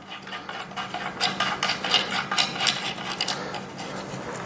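Bolts being turned by hand into a wooden table frame: light scraping and small irregular clicks, over a steady faint hum.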